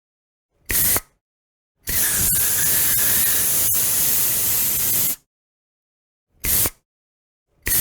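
Aerosol spray can hissing in separate presses: a short burst, then a long spray of about three seconds, then another short burst, with a new press starting at the very end. Each press starts with a faint whistle under the hiss.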